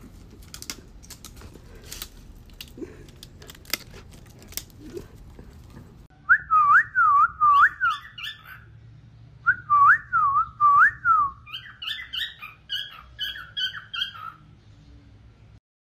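A cockatiel whistling a quick phrase of sliding notes that swoop up and down, repeated twice; the second run is longer and climbs to higher notes near its end. Before it, a few scattered sharp clicks.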